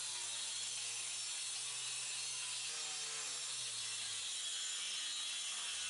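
Handheld power saw with a small round blade running steadily as it cuts through a rotten plywood subfloor.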